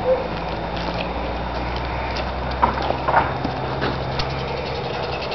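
Footsteps over grass and storm-broken branches, with a few sharp cracks and rustles about halfway through, over a steady low hum.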